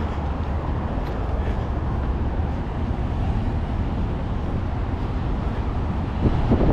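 Steady outdoor city waterfront background noise, mostly a low rumble, with a few short knocks near the end.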